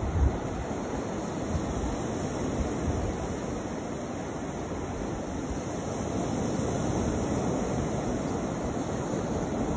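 Steady wash of surf on a beach, with low wind rumble on the microphone, strongest near the start.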